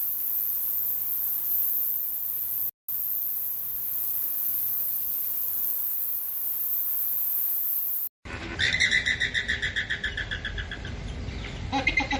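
Steady high-pitched insect buzzing, broken once by a brief dropout. After an abrupt cut, about two-thirds of the way in, comes a bird-like animal call: a rapid pulsing trill of several seconds, with a second shorter call near the end.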